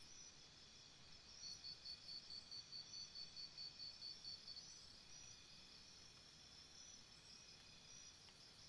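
Faint chorus of insects chirping in steady high trills, with one high chirp pulsing about four to five times a second for about three seconds, starting a second and a half in.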